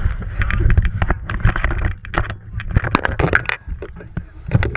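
Clattering knocks and scrapes from the camera being handled close to the microphone, many sharp clicks in quick succession, over a steady low rumble.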